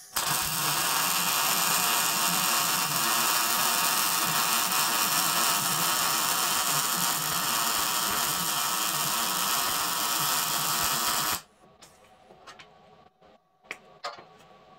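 MIG welder arc welding a steel reinforcing plate into a truck frame rail: a steady, loud crackling sizzle that cuts off suddenly about eleven seconds in, followed by a few faint clicks.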